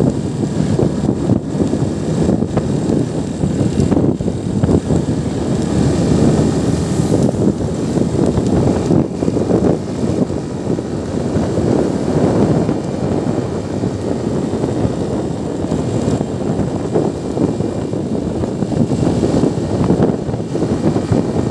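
Steady noise of a motorcycle under way: wind rushing over the microphone mixed with engine and road noise.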